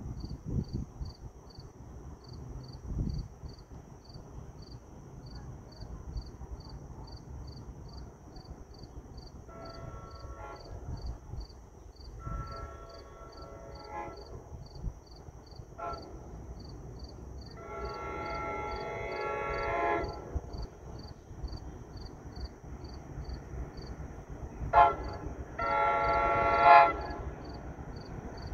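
An approaching Metro-North commuter train's horn sounds two long blasts, a short one and a long one, the standard grade-crossing signal. A short blast and another long one follow near the end, louder as the train nears.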